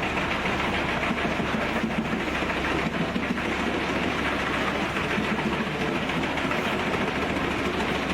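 Large industrial wood chipper running steadily, its engine and rotor making a dense, unbroken mechanical noise.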